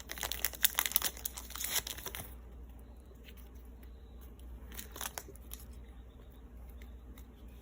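Foil Pokémon booster-pack wrapper crinkling as it is opened and handled; the crinkling stops about two seconds in, leaving a few faint rustles.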